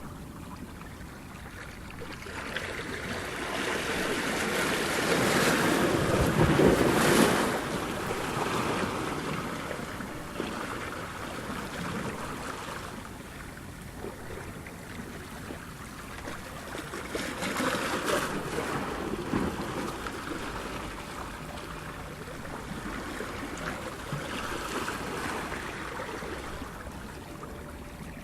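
Ocean surf washing onto a beach in slow, rolling surges. The biggest wave breaks about six to seven seconds in, and smaller ones follow later.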